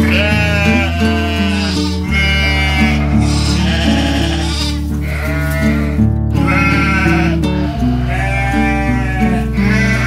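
Sheep bleating over and over, each call lasting about a second, layered over background music of held, slowly changing chords.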